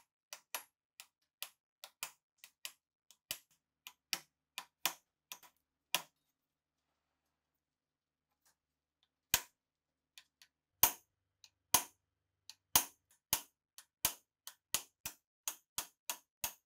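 Small hammer tapping a brass punch against the rusted action of a Winchester 1895 rifle held in a vise, driving a seized part. Sharp metallic taps, about two to three a second, with a pause of about three seconds midway.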